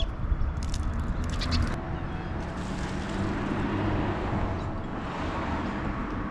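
Outdoor ambience with a vehicle passing nearby. Its noise swells and fades in the middle over a steady low rumble, and a few short high chirps or clicks come in the first two seconds.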